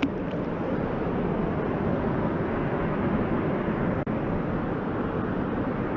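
Steady roar of water pouring through a hydroelectric dam and churning in the outflow below it. The sound breaks off for an instant about four seconds in.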